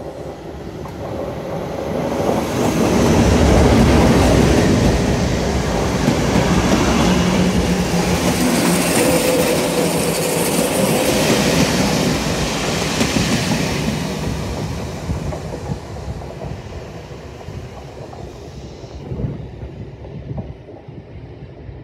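Class 37 diesel locomotive, with its English Electric V12 engine running, passes hauling a 4-VEP electric unit. The sound builds to its loudest as the locomotive goes by about four seconds in. The coaches' wheels then run past and the sound fades away over the last several seconds.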